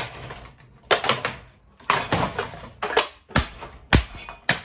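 A string of about ten irregular sharp knocks and cracks as a cheap plastic-bladed ceiling fan is smashed apart, with two heavier, deeper thuds near the end.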